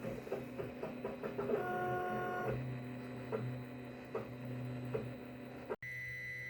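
Weedo Tina2 mini 3D printer running a print: its stepper motors whine in shifting pitches as the print head moves, with short clicks between moves. The sound cuts off suddenly near the end.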